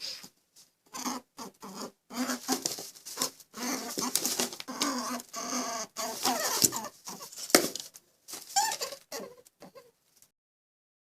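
An animal's calls: a busy, irregular run of short calls and clicks that stops about ten seconds in.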